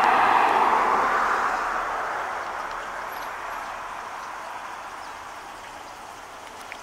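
A road vehicle driving past, loudest in the first second or so and then fading away over the next few seconds.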